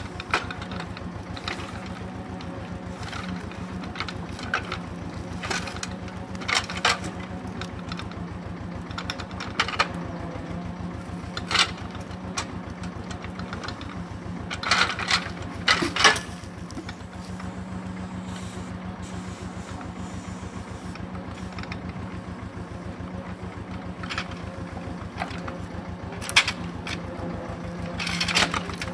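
Ursus C-328 tractor's two-cylinder diesel engine running steadily while it works a homemade hydraulic timber crane, with wooden knocks and clunks as the grapple sets logs onto the trailer load. The loudest knocks come about halfway through.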